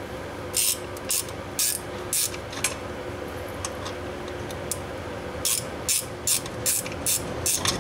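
Socket ratchet worked in short strokes, each stroke a quick burst of clicks, about two a second, turning a bolt on a newly fitted A/C compressor. There are two runs of strokes with a pause of a few seconds between them, over a steady low hum.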